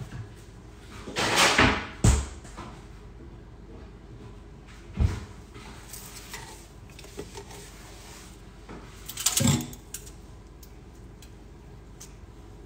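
Freezer door opened and closed: a short rush of noise ending in a sharp click about two seconds in. A single knock follows about five seconds in, and another short rush of noise with a thud about three-quarters of the way through.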